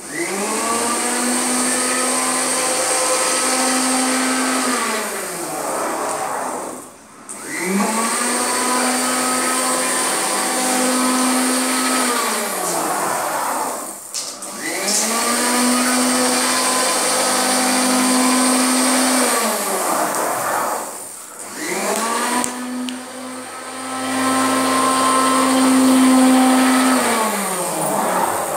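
Electric sewing machine motor running in four spells of about five seconds each, with short pauses between. Each spell climbs to a steady whine and winds down in pitch as it stops.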